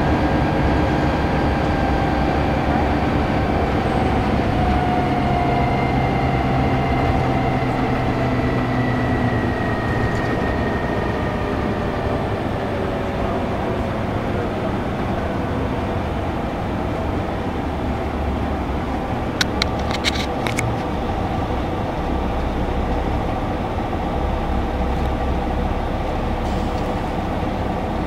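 Interior ride noise of a 1992 Neoplan AN340/3 coach: the Detroit Diesel Series 60 engine and Allison automatic transmission droning under road and tyre noise, with a faint whine that slowly falls in pitch. A brief cluster of sharp clicks about twenty seconds in.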